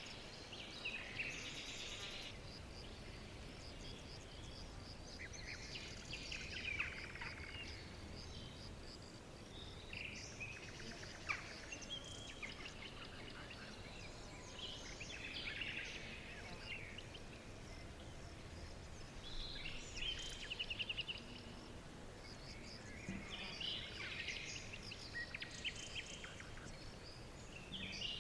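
Birds chirping and trilling in short bursts every few seconds over a steady background hiss: a forest dawn chorus of several birds.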